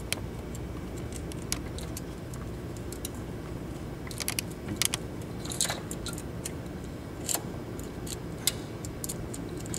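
Metal timing chain and cam sprocket of a QLINK UTV 700 engine clinking and rattling as the chain is handled and fed onto the sprocket during cam installation. Scattered light clinks, some in quick clusters, sound over a steady low hum.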